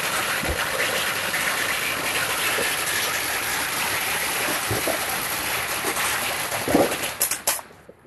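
Ground fountain firework spraying sparks with a steady loud hiss, which dies away near the end after a few sharp crackles.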